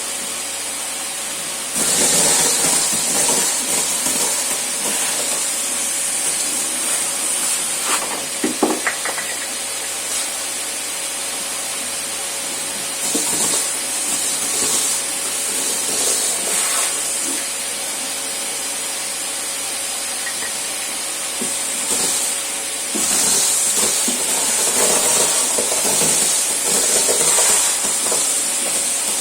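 Old Electrolux vacuum cleaner running with a steady high hiss and whine while its nozzle sucks up spilled cornflakes. The suction gets louder and rougher in stretches as the nozzle is worked, with a short burst of crackling from flakes being pulled in about nine seconds in.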